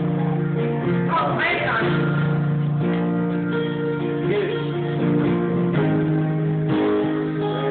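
Live acoustic guitar strumming held chords of a country song, with a voice rising briefly over it about a second and a half in.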